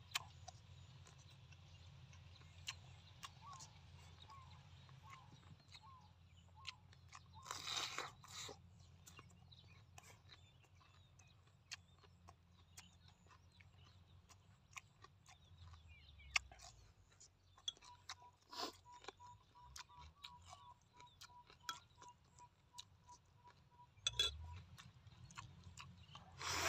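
Close-up chewing and wet mouth clicks of a person eating braised pork offal, with a louder burst of biting about eight seconds in and the meat torn apart and bitten near the end. A faint, evenly spaced series of peeps sounds in the background for several seconds in the middle.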